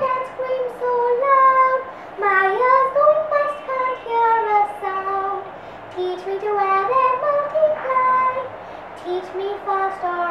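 A young girl singing solo, in several short melodic phrases with brief breaks between them.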